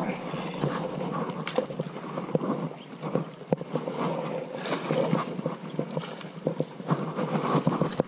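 Steady wind and water noise on the microphone, with scattered clicks and rustles from gloved hands handling a fishing line and hook right by it.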